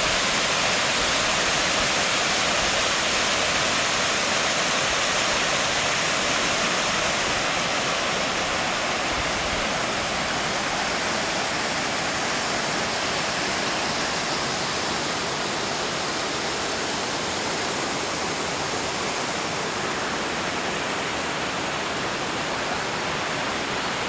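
Waterfall cascading down rock into a pool: a steady, dense rush of falling water that eases slightly in the second half.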